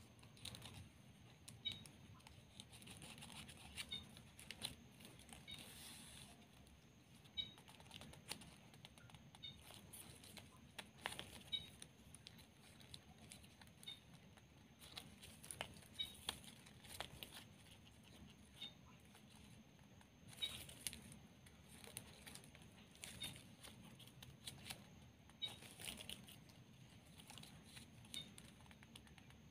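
Glossy plastic gift ribbon rustling and crinkling faintly as fingers fold and tuck it, with scattered light clicks and taps from the handling.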